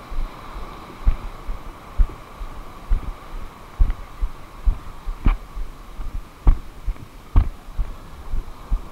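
Dull low thumps at an irregular pace of about one or two a second, over a faint steady hum.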